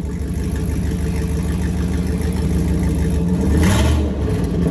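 Jeep Grand Cherokee V8 running with the muffler cut off, so the exhaust exits straight from the headers and downpipe; it idles loudly and is revved briefly about three and a half seconds in.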